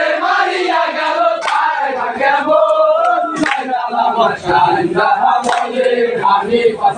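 A group of men chanting together in unison, a mourning chant. Sharp strokes sound about every two seconds.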